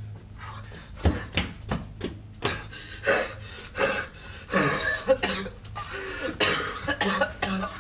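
A man coughing and gasping for breath, out of breath and bent double: a long run of short, harsh coughs and ragged gasps starting about a second in.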